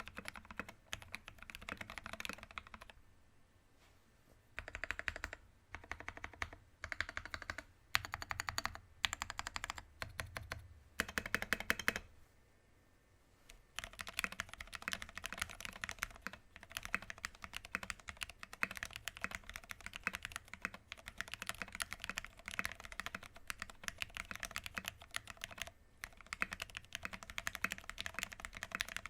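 Typing on a 60% mechanical keyboard with an aluminum plate, MT3 PBT keycaps and lubed linear switches. The first part is Gateron Ink switches in choppy bursts with a pause near the start. After a short pause about halfway through, it changes to retooled MX Black switches in steady continuous typing.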